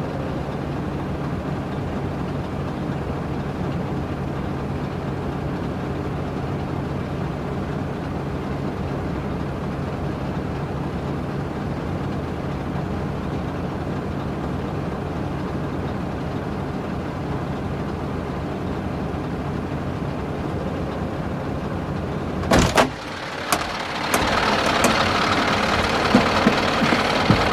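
Scania plow truck's diesel engine idling steadily, heard from inside the cab. About 22 seconds in come a couple of sharp knocks, and then a louder, hissier noise with scattered clicks joins the engine.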